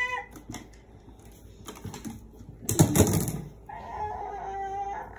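A toddler's wordless vocal sounds: a short loud outburst about three seconds in, then a held, even-pitched note near the end.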